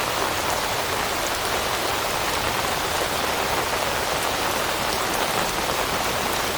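Steady rain falling and pattering on leaves, a dense even hiss with scattered drop ticks.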